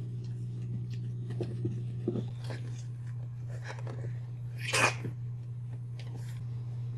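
Boxer puppies and their mother nosing and scuffling on a carpeted floor: small snuffling and scuffing sounds over a steady low hum, with one louder short sound a little before five seconds in.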